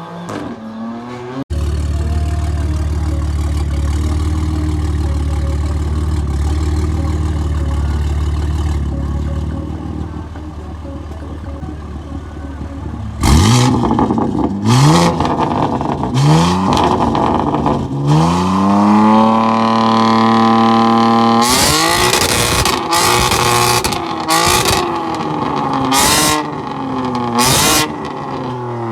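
BMW M car's twin-turbo straight-six exhaust idling steadily, then revved in several quick blips from about 13 seconds in, with one longer rev held high. A run of sharp cracks from the exhaust comes near the end.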